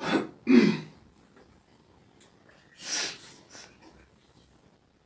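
Breathy sounds from a person close to the microphone: two short, loud bursts right at the start, then a fainter one about three seconds in.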